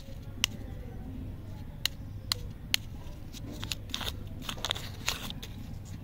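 A Mr. Jokar lollipop wrapper handled and peeled off by fingers: a few sharp clicks in the first three seconds, then a spell of crinkling about four to five seconds in.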